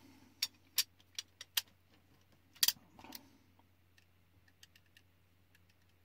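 Small sharp clicks from an airsoft HPA engine's hair-trigger assembly being worked and handled by hand while its freshly set sensor gap is checked. There is a quick run of about five clicks in the first second and a half, one louder click near the middle, then a few faint ticks.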